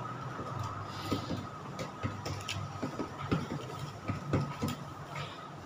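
Irregular light clicks and knocks of small things handled at a service counter, over a steady background hum.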